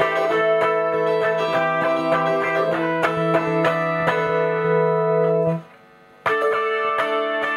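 Eastwood Mandocaster 12-string electric mandolin played amplified, with quick repeated picking over a held low note. The playing breaks off briefly about five and a half seconds in and starts again about a second later.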